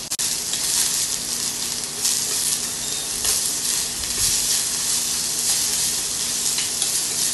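Chopped onion and capsicum sizzling in hot oil in a stainless steel kadai, stirred with a spatula that scrapes against the pan now and then.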